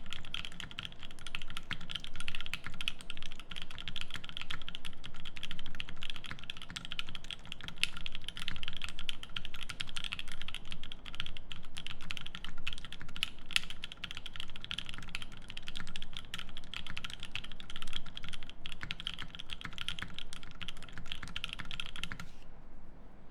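Fast, continuous typing on a Keycult No.2/65 brass-case mechanical keyboard with lubed Creamsicle linear switches on a polycarbonate plate and GMK keycaps, a dense run of keystrokes that stops about a second before the end.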